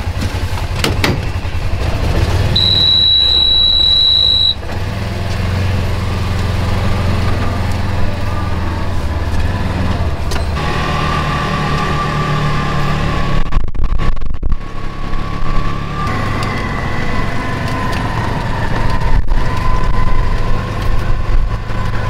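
Side-by-side utility vehicle's engine running as it drives, heard from inside the cab, its note shifting a couple of times. A steady high beep sounds for about two seconds near the start.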